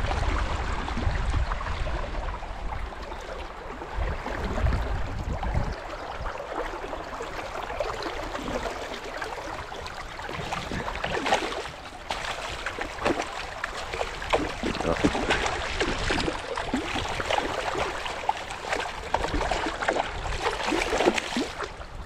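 Flowing river water with a hooked Atlantic salmon splashing and thrashing at the surface close by, the splashes coming thick and fast through the second half. A low rumble runs through the first few seconds.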